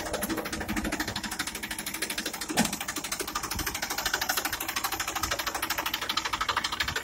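Massey Ferguson 241 DI tractor's three-cylinder diesel engine idling with a rapid, even clatter.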